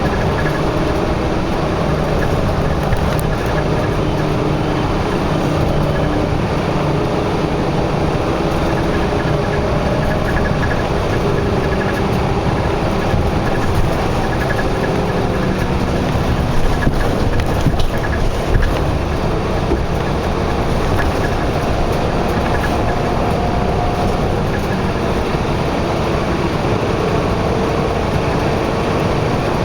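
Steady road traffic: engines and tyre noise, with engine tones that slowly rise and fall in pitch. A few louder knocks come about halfway through.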